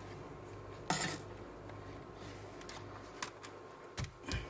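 A laptop's plastic case being handled and turned over on a silicone repair mat: a short scrape about a second in, a few light clicks, then two dull knocks near the end as the machine is set on its edge.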